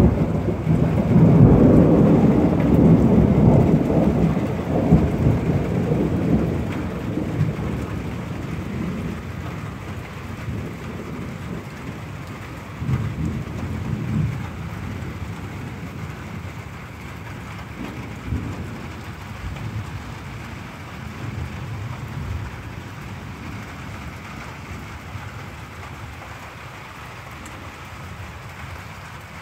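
Thunder rumbling over steady rain: a long roll that is loudest at the start and dies away over several seconds, followed by a few fainter rumbles.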